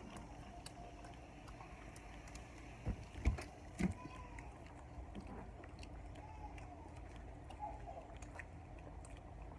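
Soda being poured into a cup, with faint scattered crackles and a few soft knocks about three to four seconds in.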